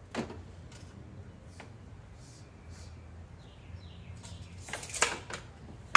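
Clicks and knocks from handling a 2x4 and a tape measure on a miter saw table, with one sharp louder knock about five seconds in; the saw is not running. Faint bird chirps and a low hum sit underneath.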